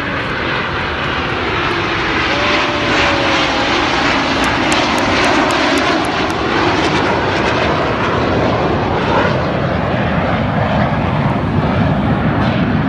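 Jet engines of a low-flying aerobatic formation, a loud steady roar that swells over the first couple of seconds.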